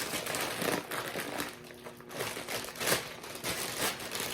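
Plastic packaging of bagged salad greens crinkling and crackling irregularly as it is handled and opened.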